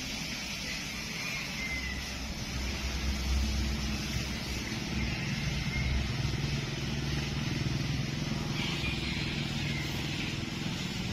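A motor engine running steadily, a low hum that swells about two seconds in and holds.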